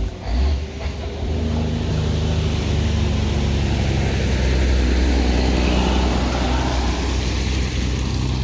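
Big truck's engine running, a steady low drone.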